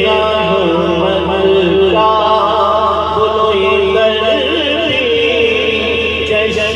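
A man's voice singing an Urdu naat (devotional praise poem) through a microphone and PA, in long, wavering, melismatic held notes.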